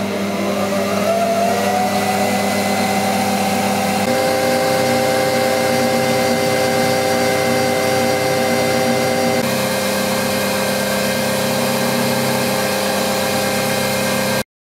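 Cowells vertical milling machine's electric motor and belt-driven spindle running. Its tone rises in pitch over the first couple of seconds as the speed control knob is turned up, then holds steady. The tone shifts slightly twice, and the sound stops abruptly near the end.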